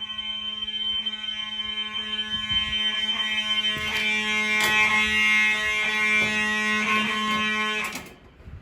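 FCI fire alarm horns sounding in alarm with a steady, buzzing, continuous tone. The tone cuts off suddenly about eight seconds in as the alarm is silenced at the panel.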